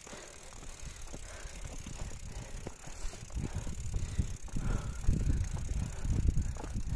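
A mountain bike being pushed uphill on foot over a loose dirt and gravel trail: footsteps and tyres crunching on the dirt, with low, uneven knocks and rumble that grow louder over the second half.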